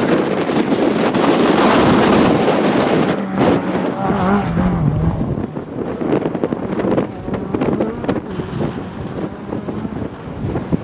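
Renault Clio rally car passing at speed, loudest about two seconds in; its engine note drops and wavers near the middle and fades away as it goes. Wind buffets the microphone.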